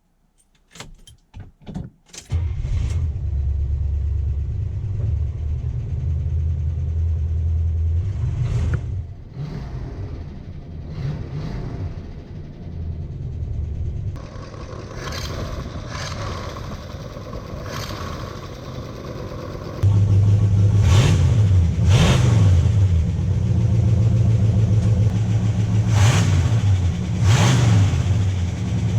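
1972 Buick Gran Sport's 350 V8 starting after a couple of seconds of cranking, then running, with its revs rising and falling. The engine gets louder about two-thirds of the way in, and there are four quick throttle blips over the last several seconds.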